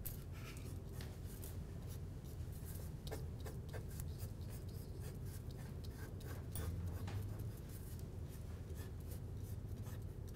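Graphite pencil scratching across watercolor paper in many short, repeated strokes, pressed dark to outline a drawing, over a faint low steady hum.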